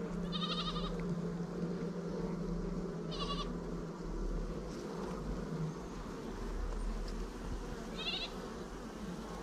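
A honeybee colony buzzing steadily around an open hive box. Three short wavering animal calls come through about half a second, three seconds and eight seconds in.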